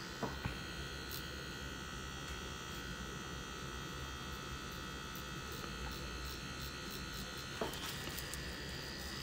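CNC CW2 tattoo machine with a CNC Police needle cartridge running with a steady electric buzz as the needle shades ink into skin. A light tap comes about seven and a half seconds in, and the machine's tone shifts slightly after it.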